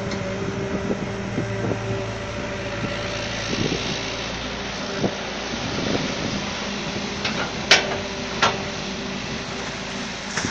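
Excavator's diesel engine running at a steady pitch, with two short sharp knocks about three-quarters of the way through.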